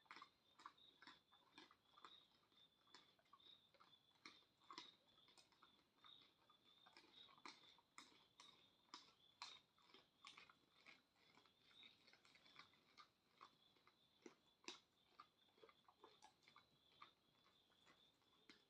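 Faint, irregular crisp clicks and crunches, a few each second, like something being chewed, over a faint steady high-pitched whine.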